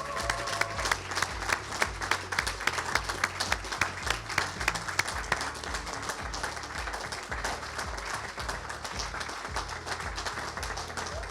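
Audience applauding, with background music carrying a steady bass beat underneath.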